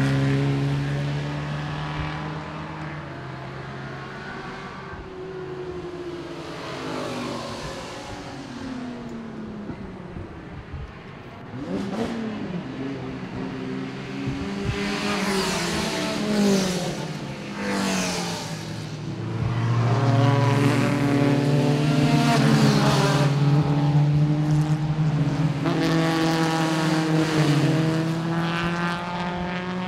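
Vintage production sports cars of under 2 litres going by one after another, each engine note rising and falling in pitch as it passes. From about two-thirds of the way through, engines are heard loudest and most steadily.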